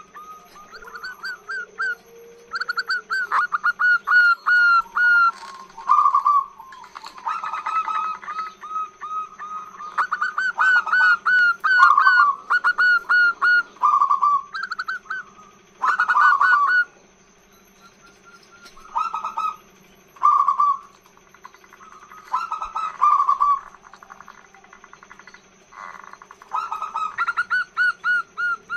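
Female zebra dove (perkutut) cooing in long runs of rapid, stuttering notes, phrase after phrase, with a couple of longer pauses in the second half. This is the female's call used as a lure to draw males into song.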